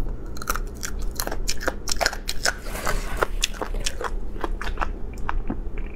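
Close-miked eating sounds: chewing and biting on bone-in chicken, a steady run of sharp crunching clicks several times a second.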